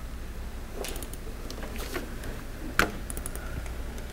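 Scattered clicks and taps on a laptop's keys and trackpad, with one louder click about three seconds in, over a steady low room hum.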